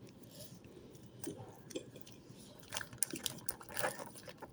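Faint scattered crinkling and clicking handling noises, coming more often in the second half.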